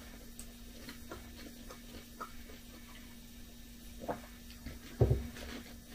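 Quiet sipping from a mug of chicory drink, with small mouth clicks and a louder low mouth sound about five seconds in, over a faint steady hum.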